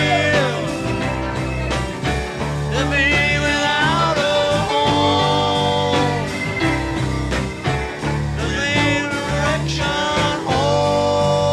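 Background music: a song with a singing voice over a steady, repeating accompaniment.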